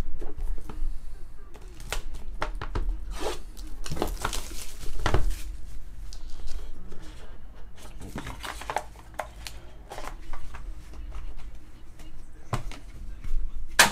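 Plastic shrink-wrap crinkling and tearing off a trading-card hobby box, with the loudest rustle about four to five seconds in. Scattered clicks and knocks follow as the cardboard box and a hard plastic card holder are handled.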